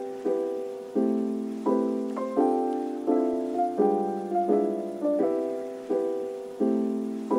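Background music: a soft piano playing a slow, steady chord pattern, each chord struck and left to ring.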